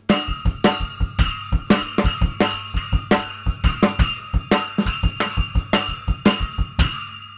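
Drum kit groove with a Zildjian 6-inch A Custom splash cymbal struck with wooden 5A drumsticks, about two splash hits a second over bass drum and snare. Near the end the playing stops and the last splash hit rings out and fades.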